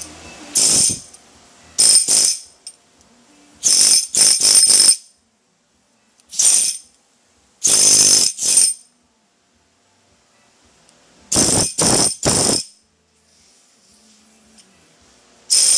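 Top Cat pneumatic chipping hammer (air chisel) fired free in the air in short trigger bursts: a rapid metallic rattle with air hiss. There are about a dozen bursts, some single and some in quick clusters of two to four, with silent pauses between.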